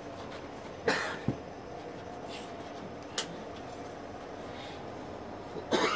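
Steady low background noise broken by a few isolated sharp knocks and clicks: one about a second in, a dull thud just after, and a sharp click near the middle.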